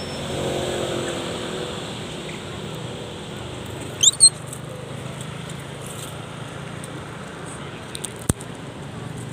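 Two quick, high, rising squeaks from a macaque about four seconds in, over a steady low background hum. A single sharp click comes near the end.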